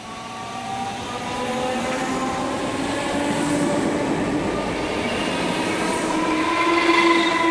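Class 313 electric multiple unit running past at close range: motor hum and wheels on the rails growing steadily louder, with several steady tones sliding slightly upward. It is loudest about seven seconds in.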